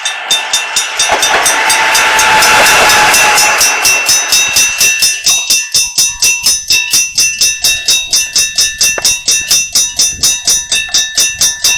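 Bell-striking-type (打鐘式) level-crossing alarm clanging in rapid, evenly spaced strokes, while a KiHa 40 diesel railcar passes over the crossing about one to five seconds in. The alarm stops suddenly at the very end.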